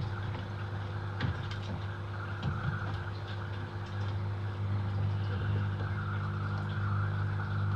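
A steady low hum with a band of hiss underneath, and a few light knocks as PVC pipe and an elbow fitting are handled and offered up to a plastic drum.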